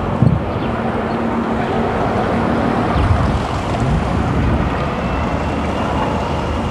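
Outdoor wind buffeting the microphone: a steady rushing rumble. A faint thin high whine comes in about five seconds in.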